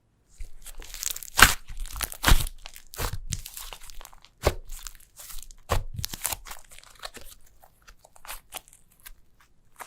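Slime being kneaded and stretched by hand, with a run of crunchy crackles and sharp pops. The loudest pops come at about a second and a half and two and a half seconds in, and the crackling thins out near the end.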